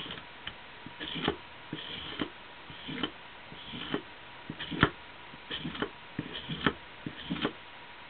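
Hand-tool work on a small workpiece: short clicks and brief scrapes, often in pairs, repeating about once every three-quarters of a second. A faint steady hum runs underneath.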